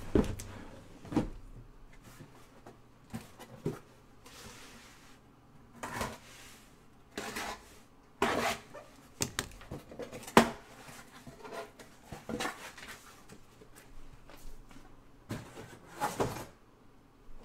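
Cardboard handling: sealed trading-card hobby boxes slid out of their cardboard shipping case and set down, with a string of irregular scrapes, rustles and light knocks, the loudest about ten seconds in.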